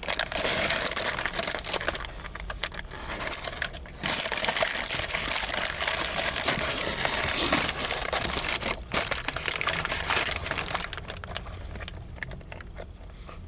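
Close-up crackling and crunching of a sandwich being handled and chewed: lettuce, bacon and bread crunching, with crinkling of the sandwich's wrapping. It is louder at the start and quieter near the end.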